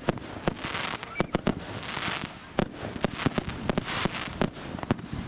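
Fireworks going off: a rapid, irregular string of sharp bangs and pops, with swells of crackling hiss about one, two and four seconds in.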